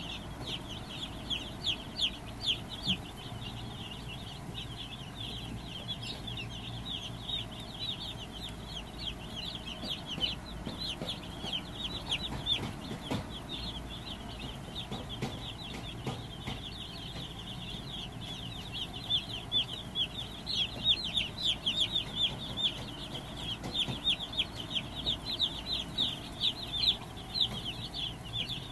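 A brood of day-old Cornish cross broiler chicks peeping constantly, many short downward-sliding cheeps overlapping, growing busier and louder in the second half. A steady low whir from the brooder's electric circulation fans runs underneath.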